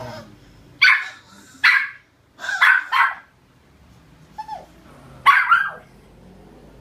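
Small long-haired dog barking angrily, about six sharp, high-pitched yaps in short clusters with pauses between them.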